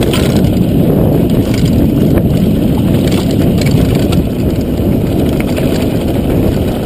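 Mountain bike riding fast down a dirt trail: a steady low rumble of wind buffeting the microphone and tyres on dirt, with scattered clicks and rattles from the bike over rough ground.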